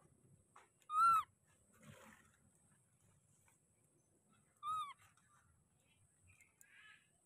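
Baby macaque calling twice, about a second in and again near five seconds: short, high, clear cries that arch up and then drop in pitch.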